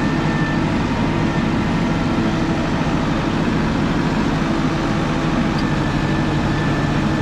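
Heavy diesel engine of farm machinery running steadily at a constant speed, with no revving or change in load.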